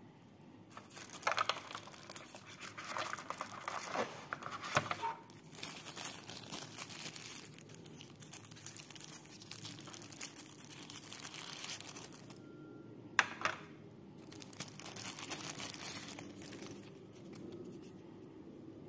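Tissue paper wrapping crinkling and rustling as it is handled and unwrapped, in irregular spells, with one sharp click about thirteen seconds in.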